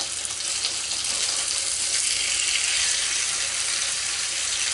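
Thin marinated pork loin medallions sizzling in hot oil in a frying pan as they are turned over; the sizzling swells about two seconds in.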